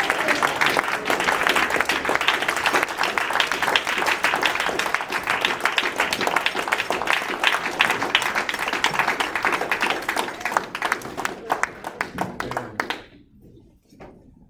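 Church congregation clapping and applauding, a dense steady patter of many hands that dies away about thirteen seconds in.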